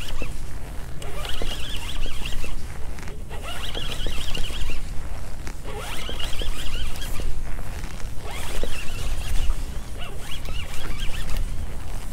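Fishing reel being cranked to retrieve a small catfish on the line, a rasping, zipper-like rattle in spurts of a second or two with short pauses between. A steady low rumble runs underneath.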